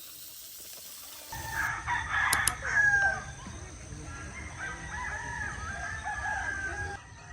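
A rooster crowing loudly about two seconds in, followed by further shorter chicken calls, over a low steady rumble.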